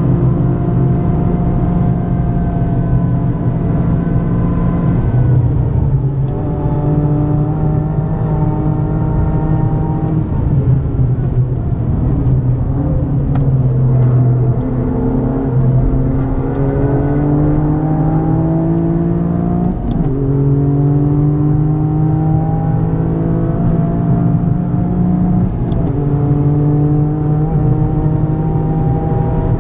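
Toyota GR Yaris's turbocharged 1.6-litre three-cylinder engine through an Aulitzky aftermarket exhaust, heard from inside the cabin while driven hard at speed. Its pitch falls about five seconds in, climbs steadily under acceleration through the middle, breaks briefly about twenty seconds in and changes again near the end, over steady road noise.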